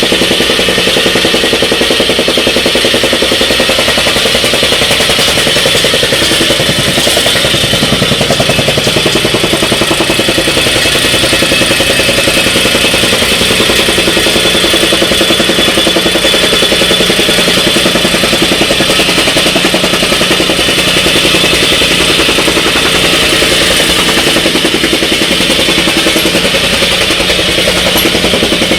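Jumping jack rammer (tamping rammer) running, its foot pounding the ground in a rapid, even rhythm over a loud, steady machine drone.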